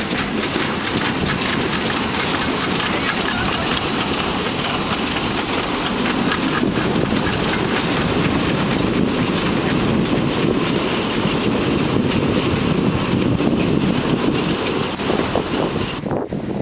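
Narrow-gauge train hauled by a Saxon IV K articulated steam locomotive passing close by, the locomotive and then its coaches rolling past with their wheels clattering on the track. The sound drops away suddenly near the end.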